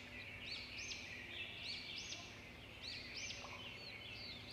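Small birds chirping faintly in the background, with several short rising-and-falling calls each second.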